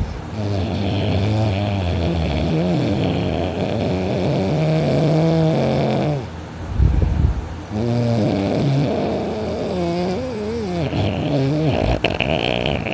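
A person in deep sleep on their back, snoring loudly and heavily: two long, wavering snores, with a short low breath between them about seven seconds in.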